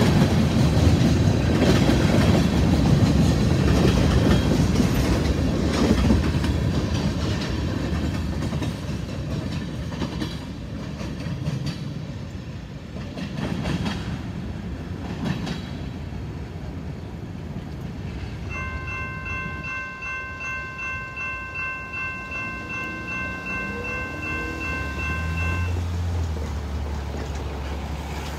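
Freight train of covered hoppers and tank cars rolling by, with rumbling and clattering wheels on rail joints that fade as the train moves away. About two-thirds of the way through, a multi-note locomotive horn chord sounds, held steady for about seven seconds, quieter than the passing cars.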